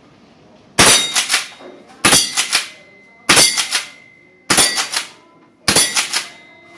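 Tokyo Marui KSG gas-powered airsoft pump-action shotgun firing five times, about one shot every 1.2 seconds. Each shot is a sharp crack followed by quick clacks, and there is a faint metallic ring.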